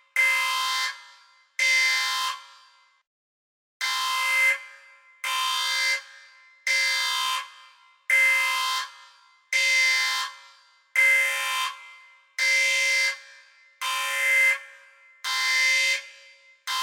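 Red-alert danger alarm sound effect: a harsh, horn-like klaxon blast repeated about every second and a half. Each blast starts sharply and fades in an echoing tail. There is one longer pause about three seconds in.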